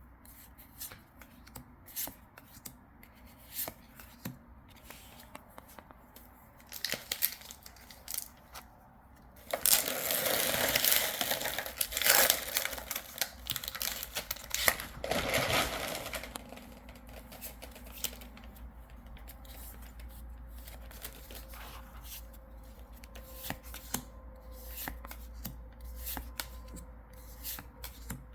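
Trading cards being handled with light clicks and flicks. About ten seconds in, a foil booster pack wrapper is torn open and crinkled for several seconds, the loudest sound, and then the cards are handled quietly again.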